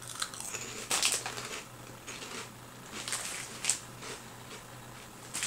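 Crisp, salty little rectangular cracker being bitten and chewed, with a few sharp crunches about a second in and again around three to four seconds.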